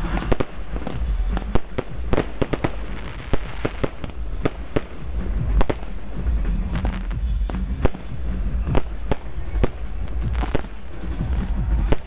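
Consumer fireworks going off in rapid succession: a string of sharp bangs and pops, a few every second at irregular intervals, over a continuous hiss.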